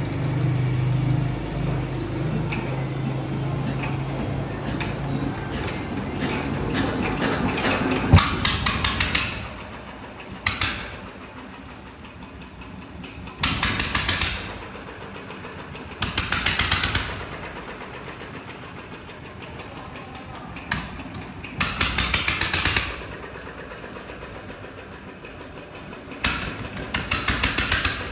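Restored old diesel engine running with a steady, even hum for about eight seconds. After that come several short bursts of rapid, regular knocking, each lasting a second or so, with quieter gaps between them.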